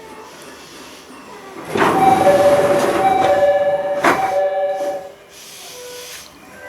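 Door chime of a JR East E501 series train: a two-note high–low chime repeated several times, starting about two seconds in, over the rushing noise of the sliding doors moving. About four seconds in the doors shut with a sharp thud, and the chime trails off a second later.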